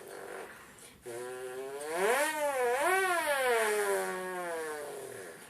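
A person imitating a 2005 Ford GT's engine with his voice: a held, buzzing vocal tone that starts about a second in, rises and falls in pitch like an engine revving, then slowly drops away.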